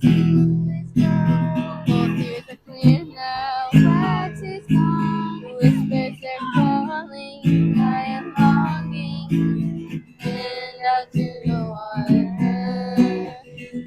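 Acoustic guitar strummed in steady chords with a voice singing a melody over it.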